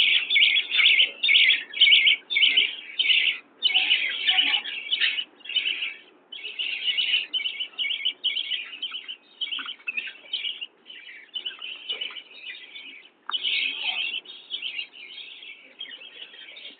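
A group of budgerigars chattering and warbling: a dense stream of rapid high chirps in bouts of a second or two, with brief pauses between.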